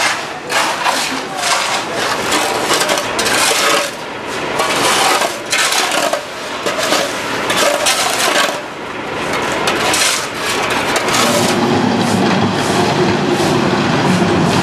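Metal shovels scraping and scooping wet mud and gravel off a paved street in quick, irregular strokes with metallic clinks. About eleven seconds in, a backhoe loader's diesel engine takes over, running steadily.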